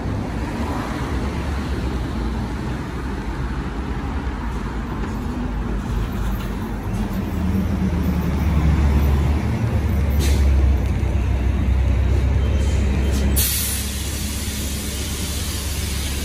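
Caterpillar C-13 diesel engine of a 2008 MCI D4500CT express coach rumbling as the bus pulls in and stops, growing louder as it draws close. A short hiss of air comes about ten seconds in, then a loud, sudden air-brake hiss near the end as the brakes set.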